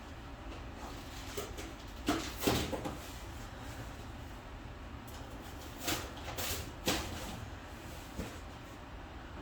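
Short knocks and clatters of objects being handled and set down, grouped around two to three seconds in and again around six to seven seconds in, over a faint steady low hum.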